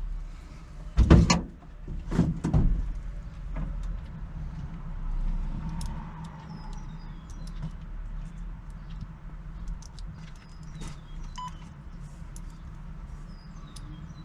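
Two loud knocks, about a second and about two and a half seconds in, then scattered light clicks, over a steady low wind rumble, with short high chirps of birds now and then.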